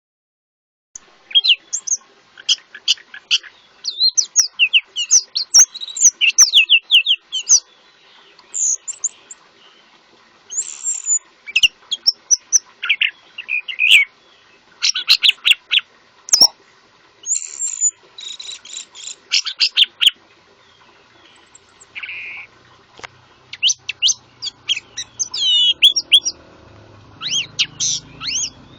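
Songbird song played as a 'master' tutor recording for training captive orange-headed thrushes: rapid, varied chirps, trills and whistles in bursts separated by short pauses.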